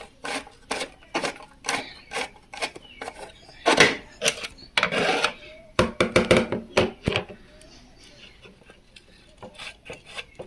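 Long screwdriver scraping and clicking against the oil-drain screw under an industrial sewing machine as it is worked loose: irregular metal taps and rubs, with longer scrapes about four and five seconds in and a quick run of clicks about six seconds in.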